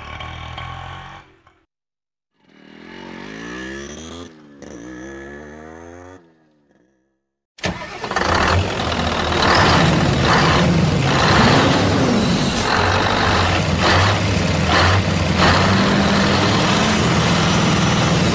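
Motor vehicle engine sounds in separate pieces. There is a short stretch of engine sound, a gap, then a few seconds of engine whose pitch glides up and down. After another short gap, a loud engine starts suddenly about eight seconds in and keeps running steadily.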